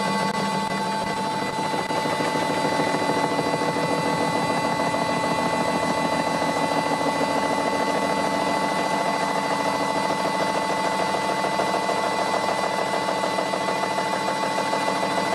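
Vintage Karger lathe running an 80 mm six-insert face mill through a 0.3 mm facing cut: a steady whine from the lathe's drive with a fast, even rattle of the inserts striking the work, which grows stronger about two seconds in.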